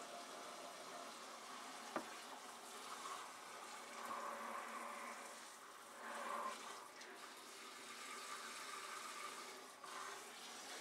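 Dishes being washed at a kitchen sink: faint running water from the faucet and water sloshing around a frying pan, with a single sharp clink about two seconds in.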